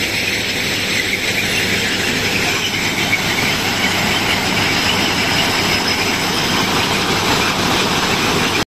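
Railway ballast cleaning machine at work: its engine and digging and screening machinery run with a loud, steady, continuous mechanical din.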